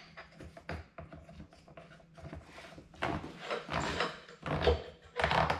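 Top cover being fitted onto a Makita EK8100 demolition saw: the cover rubbing and scraping against the saw's housing as it is pressed into place. Several knocks and a dull thump come in the second half.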